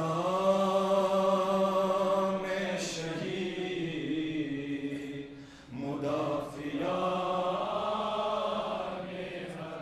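A man's voice chanting a devotional elegy in two long, drawn-out wordless phrases, each held on steady notes, with a short break just before six seconds in.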